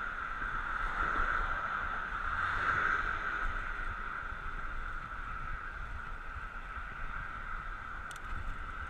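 Steady rolling noise from a bicycle riding on 700x35 Nimbus Armadillo tyres, with wind rumbling on the microphone and a faint click near the end.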